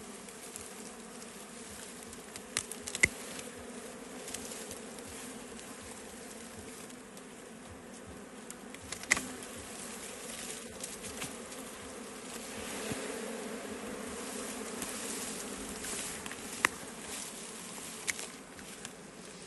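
Wild bees buzzing en masse in a steady, dense hum that swells a little past the middle, with a few sharp clicks over it.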